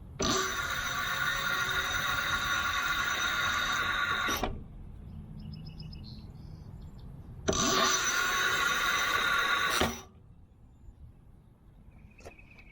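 Delfast e-bike's rear hub motor whining as the throttle spins the wheel, in two runs of about four and two seconds, each cut off suddenly when the brakes are hit: a throttle-and-brake test for play at the rear axle.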